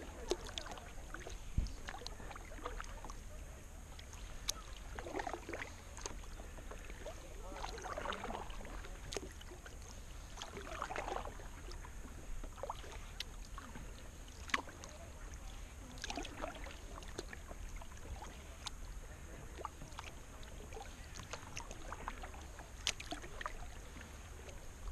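Kayak paddle strokes on calm water: the blade dipping and pulling through with soft splashes and drips every few seconds, and occasional short sharp clicks, over a steady low rumble.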